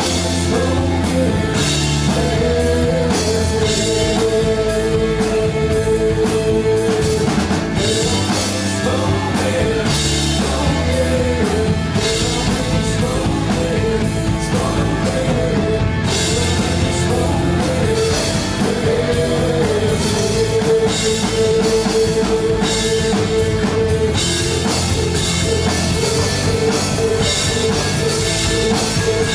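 Rock band playing live: electric guitars, bass guitar and drum kit, with a lead vocal carrying the melody over a steady beat.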